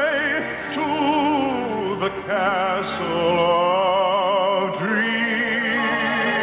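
Operatic-style singing with wide vibrato and long held notes over orchestral accompaniment: a song number in a 1950s radio musical broadcast. A long high note is held from about five seconds in.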